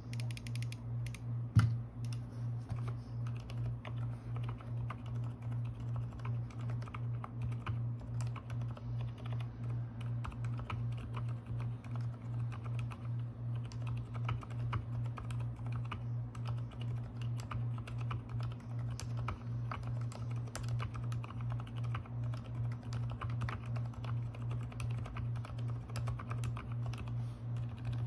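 Continuous typing on a Keychron K4 V2 mechanical keyboard with lubed silent black linear switches and a foam-filled case: soft, muted keystrokes in quick irregular runs, with one louder keystroke about a second and a half in. A steady low hum that pulses evenly sits under the typing.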